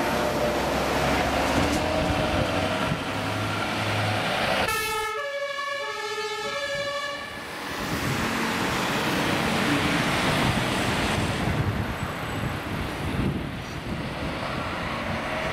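Emergency vehicles passing on a call: heavy diesel engine and tyre noise, broken about five seconds in by a German two-tone siren (Martinshorn) alternating between a high and a low note for about three seconds, then the engine and road noise of an ambulance driving past close.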